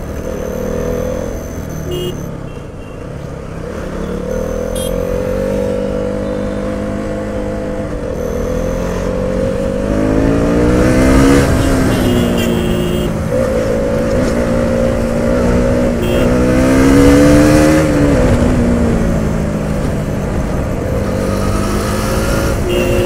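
Motorcycle engine under way, its pitch rising as it accelerates and falling as it eases off, climbing to a peak about halfway through and again a few seconds later, over a steady low rumble.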